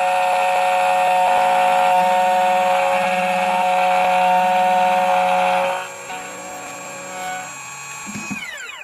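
A CNC key cutting machine's spindle and 2.0 mm cutter milling a key blank, with a steady whine and a grinding hiss. About six seconds in the cutting noise drops away, and near the end the spindle spins down in a falling whine.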